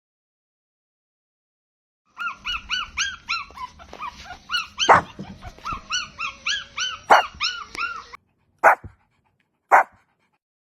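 Dog barking: starting about two seconds in, a rapid run of short, high-pitched yaps at about four a second, with a few louder barks among them, then two single barks about a second apart.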